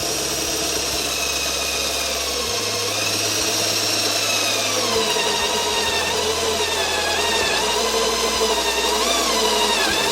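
Electric drill running a step drill bit through a car trim panel to cut a 30 mm hole. The motor whine holds steady, with its pitch wavering and sagging as the bit bites under load.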